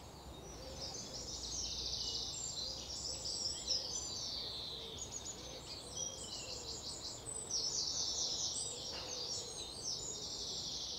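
Several birds singing at once, a continuous chorus of overlapping chirps and rapid trills.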